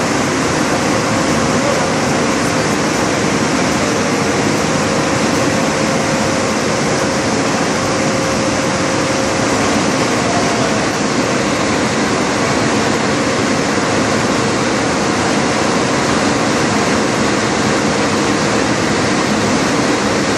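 Ten-colour rotogravure printing press running: a steady, loud mechanical whir and rush of noise, with a faint steady tone underneath.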